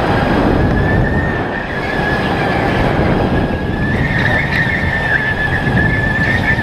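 Sodi RTX electric go-kart running at speed: a steady high electric-motor whine over a rough rumble from the kart, the whine rising a little about four seconds in.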